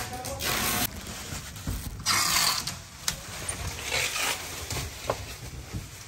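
Bubble-wrap packaging rustling and crackling in irregular bursts as wrapped parcels are handled, with scattered clicks and knocks between.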